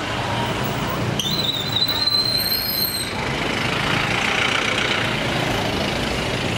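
Motorbikes and an SUV passing on a city street. A high, slightly rising squeal starts about a second in and lasts about two seconds.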